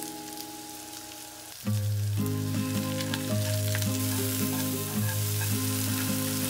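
Sliced button mushrooms sizzling in hot oil in a frying pan, the sizzle growing much louder about two seconds in, with a few light ticks. Soft background music with sustained notes runs underneath.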